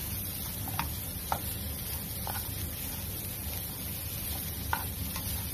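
A black slotted plastic spatula stirs and scrapes grated coconut, cashews and sugar around a nonstick frying pan, with a few sharper scrapes against the pan, over a steady low hum.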